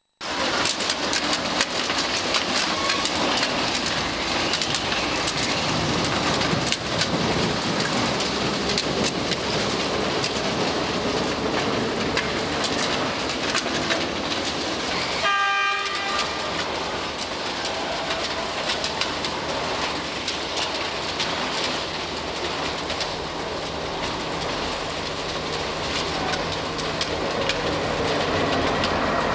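Railway track maintenance machine working the ballast: its engine runs under a dense, steady clatter and hiss of stones and grit. About halfway through, a short horn note sounds for half a second. In the second half a steady low engine hum joins in.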